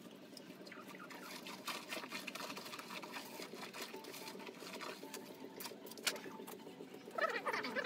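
Feathers being pulled by hand from scalded chickens: a rapid, crackly run of small wet tearing ticks. Near the end a louder, wavering, voice-like sound comes in over it.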